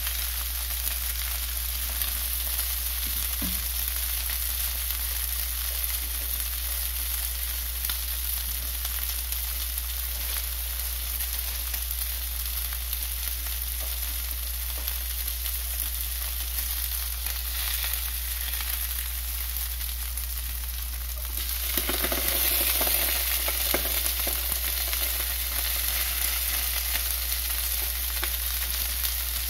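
Filefish pieces pan-frying in oil in a nonstick frying pan: a steady sizzle that grows louder about three-quarters of the way through.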